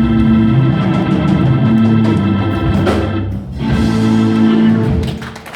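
Band music led by sustained organ chords, with a short dip a little past the middle; the music dies away near the end.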